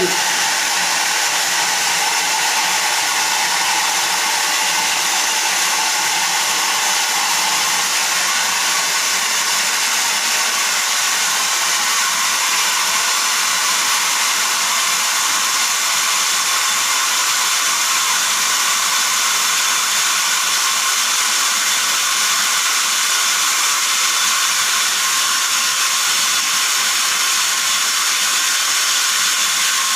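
Steady loud hiss of water rushing out of an open drain on a newly repaired water line under pressure.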